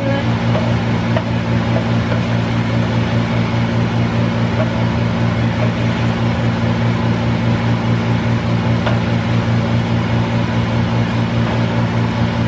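Steady low hum of a kitchen exhaust fan over the stove, with bitter melon and pork sizzling in a frying pan as a wooden spatula stirs it.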